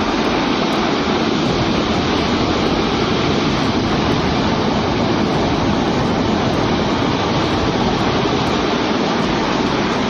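Rockfall from a steep cliff: a loud, continuous rushing rumble of rock and debris pouring down the face, steady throughout with no single impacts standing out.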